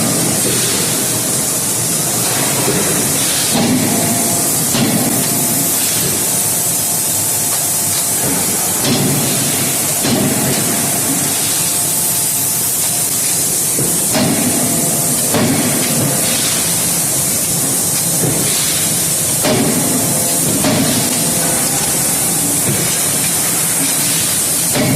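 CNC hydraulic closed-die forging hammer at work: a steady loud hiss over the production line, with pairs of hammer blows about a second apart repeating roughly every five seconds, one pair per forging cycle.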